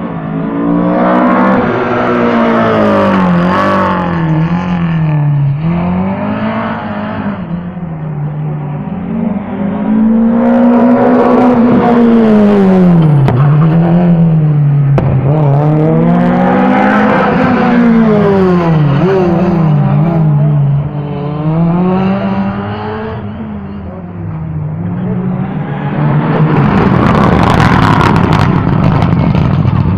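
Rally cars passing one after another at speed, each engine revving up and then falling in pitch through gear changes and braking, loudest as it goes by.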